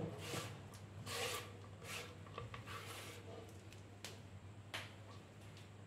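Faint scraping and rustling in several short strokes as chopped onion and dill greens are pushed off a wooden cutting board into an aluminium kadai.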